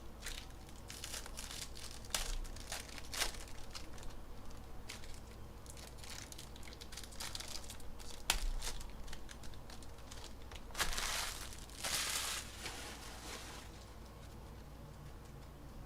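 Foil and plastic wrapping of trading card packs crinkling and tearing as the packs are handled and opened, with scattered sharp crackles and a longer burst of crinkling about eleven seconds in.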